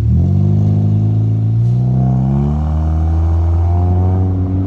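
Car engine accelerating hard: the engine note climbs, drops back about halfway through as it shifts up a gear, then climbs again.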